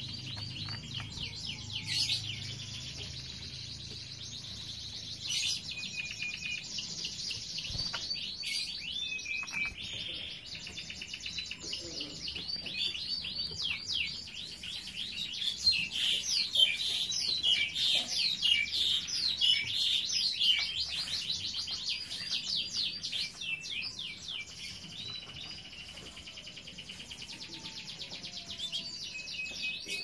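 Caged domestic canaries chirping and twittering in quick runs of high notes, busiest and loudest in the middle.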